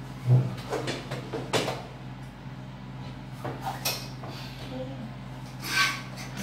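Scattered knocks and clinks of tableware and furniture being handled, with a single sharp thump about a third of a second in as the loudest, and further clatters around one and a half, four and six seconds in.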